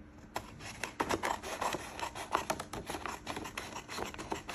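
Scissors cutting through a sheet of orange coloured paper: a run of close snips and paper rustle, starting about half a second in.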